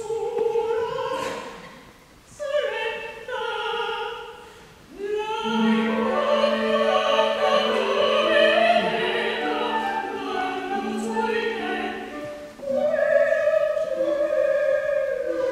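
Operatic voices singing with an orchestra: short sung phrases broken by brief pauses, then a fuller, continuous passage from about five seconds in.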